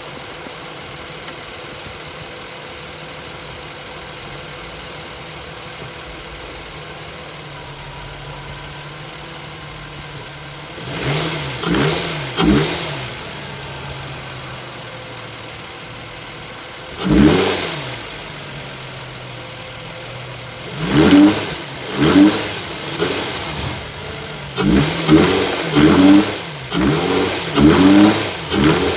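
2003 Infiniti FX35's V6 engine with a spun bearing, idling steadily and then revved in short blips, a few at first and then in quick succession near the end.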